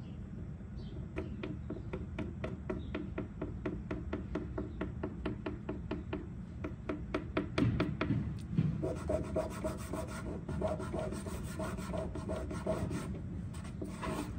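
Fingertips rubbing Mohawk Blendal touch-up colour into scratched wood veneer on a dresser, in dry back-and-forth strokes about three or four a second. The strokes turn quicker and denser a little past halfway.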